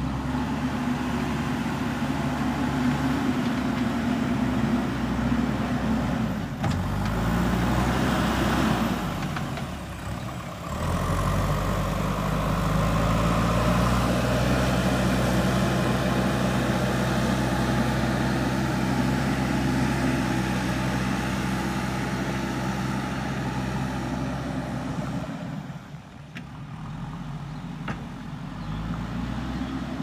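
JCB 3DX backhoe loader's diesel engine running under load while the machine drives and levels soil with its front bucket. The engine pitch rises and falls as it revs, and the sound briefly drops away twice.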